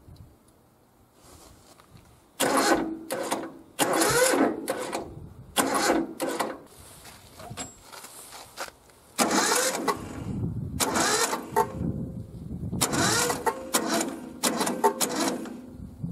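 Yanmar YM1500 tractor's diesel engine being cranked by its electric starter in repeated short bursts of about a second each, roughly seven attempts, without settling into a steady run.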